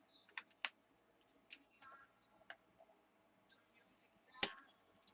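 Scattered small clicks and taps from a netbook's plastic casing being handled during disassembly, with one sharper click near the end.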